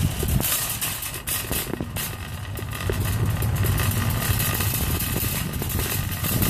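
Wire shopping cart being pushed over pavement: a steady rolling rumble from its wheels with many small rattles.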